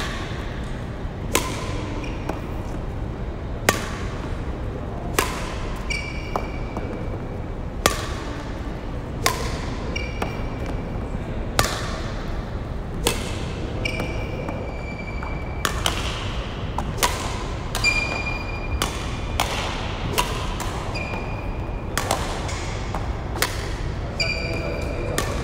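Badminton racket striking a shuttlecock again and again in a drill: a sharp crack about every second and a half, each with a short echo of a large hall. Between shots, court shoes squeak on the wooden floor.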